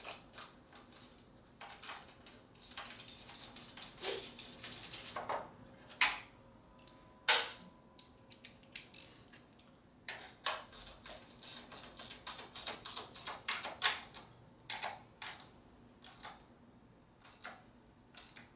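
Light clicks, taps and rattles of hand tools and metal parts being worked on a motorcycle, with a rustling stretch a few seconds in and a quicker run of clicks from about ten to fourteen seconds in.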